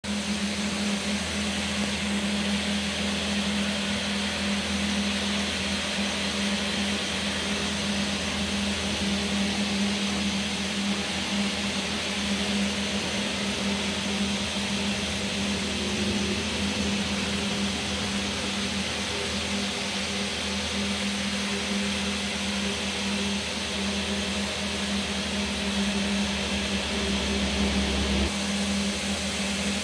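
Steady machine hum and whirr with a constant low tone, unchanging in level. A deeper rumble underneath stops near the end.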